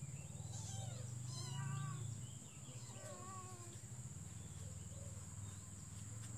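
A domestic cat meowing, about three short meows in the first few seconds, over a steady low hum.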